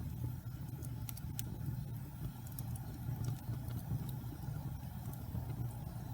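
Wood logs burning in a fireplace: a steady low rumble of the fire with scattered sharp crackles and pops.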